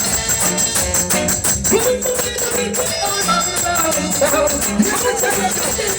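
Dancehall music playing through a sound system: a singing voice over a steady beat with a shaker rattling.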